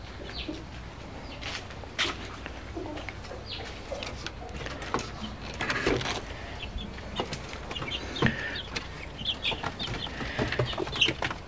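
Chickens clucking and young chicks peeping in short, high calls, more often in the second half, with a few knocks.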